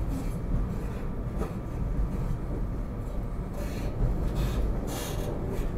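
Steady low rumble of an electric commuter train running along the track, heard from inside the passenger car. Brief hissing rushes come through about four and five seconds in.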